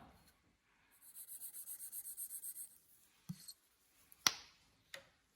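Intake valve of a Lister CS cylinder head being lapped into its seat with lapping compound: a quick back-and-forth rasping, about seven strokes a second for under two seconds, followed by a soft click and a few sharp knocks, the loudest a little past four seconds in.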